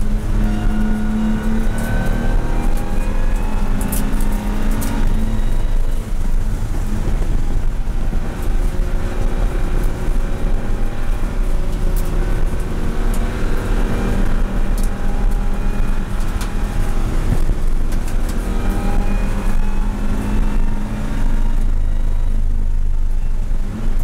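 BMW M235i Racing's turbocharged straight-six heard loud from inside the cockpit at speed on track, its pitch rising and falling as the driver accelerates and eases off through corners. It holds a steadier note for a couple of seconds near the end, and a few sharp clicks stand out along the way.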